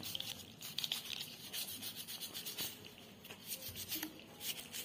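Toothbrush bristles scrubbing the hard shell of a live freshwater crab, a quick run of scratchy back-and-forth strokes that clean off dirt.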